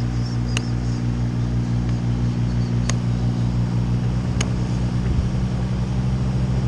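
An engine running steadily at low speed, with three sharp clicks spread through it.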